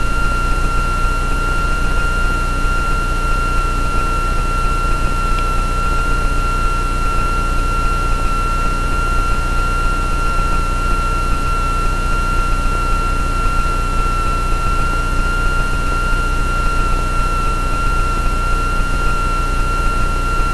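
Extra 300L's six-cylinder Lycoming engine and propeller running steadily at low taxi power, an even drone with a constant high-pitched whine over it.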